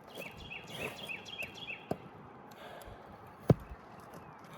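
A bird sings a quick run of about six repeated high chirping notes, over outdoor background noise. Two sharp clicks or snaps on the roof, the louder one about three and a half seconds in.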